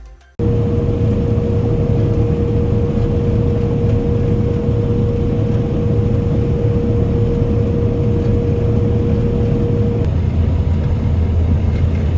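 Combine harvester running steadily under load, a loud low drone with a steady whine on top; it starts suddenly, and the whine drops out about ten seconds in.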